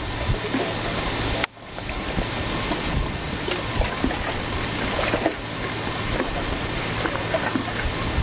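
Wind buffeting the camcorder's microphone, a steady gusting rumble, which briefly cuts out about a second and a half in.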